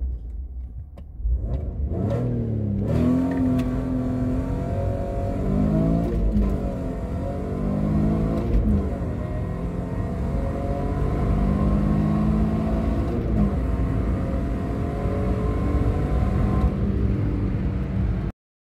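Alfa Romeo 156's 2.5-litre V6, fitted with 45 mm intake runners and a remap, accelerating hard at full throttle, heard from inside the cabin. The revs climb through the gears, the pitch dropping back at each of several upshifts, and the sound cuts off abruptly near the end.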